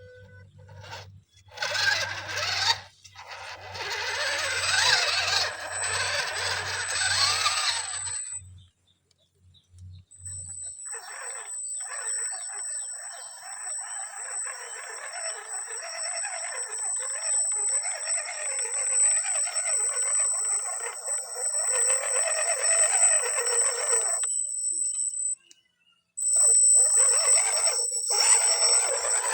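Electric RC crawler's motor and gear drive whining as it is driven, in several throttle runs: short bursts early on, a long steady run from about a third of the way in, a brief stop, then another run near the end.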